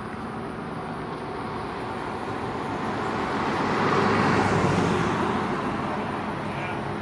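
A road vehicle passing by: its tyre and engine noise grows louder to a peak about four seconds in, then fades, over a low engine hum.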